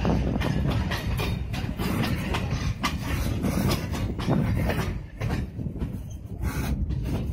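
Train running along the track, heard from on board: a steady rumble with the irregular clickety-clack of steel wheels over rail joints.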